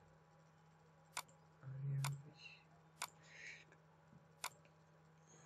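Four sharp computer mouse clicks, roughly a second apart, over a faint steady electrical hum, with a brief louder low hum about two seconds in.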